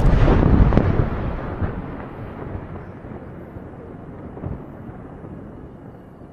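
A large aerial firework shell bursting: a loud bang with a second sharp report just under a second later, then a long rolling echo that slowly fades over several seconds.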